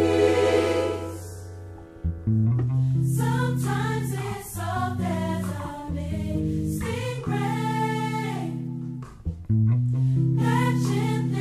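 Background music: a choir singing held, sustained phrases. One phrase fades out about a second and a half in, and a new one begins at about two seconds.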